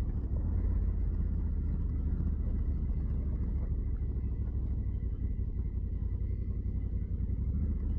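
Honda Africa Twin motorcycle's parallel-twin engine running steadily, a low even rumble with a faint steady high whine above it.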